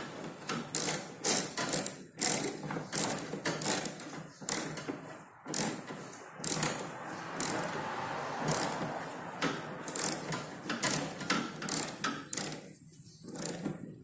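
Ratchet wrench clicking in quick, uneven runs as a window air conditioner's compressor mounting nut is run down onto its stud. The clicking stops near the end, as the nut seats lightly without being cranked tight.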